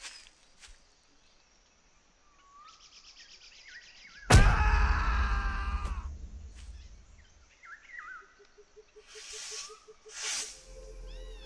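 Cartoon forest ambience with short bird chirps. About four seconds in a sudden loud sound effect hits, a deep rumble under a pitched ringing tone that fades over about two seconds. Two short whooshes follow near the end as a glowing spirit appears.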